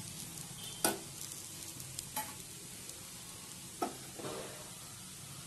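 Clam meat sizzling as it fries in oil in a pan: a steady hiss with a few short sharp clicks, the loudest about a second in and another near four seconds.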